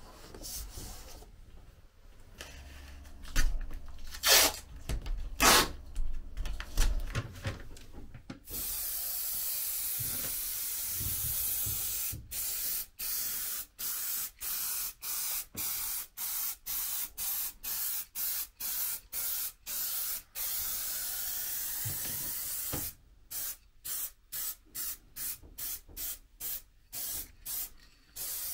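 HVLP paint spray gun spraying paint. First comes a few seconds of steady hiss, then the trigger is pulsed in short bursts about twice a second, with one brief pause. Before the spraying starts there are a few loud knocks and handling noises.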